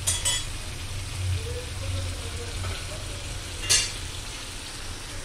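Spiced mutton curry sizzling and frying in an open karahi while it is stirred with a spatula. Two sharp scrapes or knocks of the spatula against the pan come just after the start and a little before the four-second mark.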